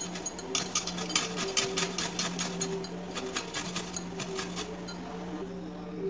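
Fresh ginger being grated on a steel grater: quick, rhythmic scraping strokes, about four or five a second, thinning out after about three seconds, over a steady low hum.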